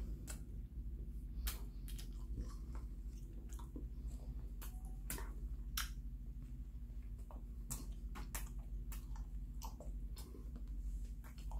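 A person biting into and chewing a large filled bread pastry close to the microphone, with irregular crackles and wet mouth clicks.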